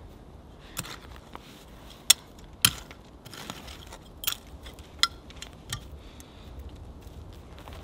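Hands working loose soil and turf back into a dug patch, with about half a dozen sharp clicks and knocks of hard pieces striking each other, two of them louder a couple of seconds in.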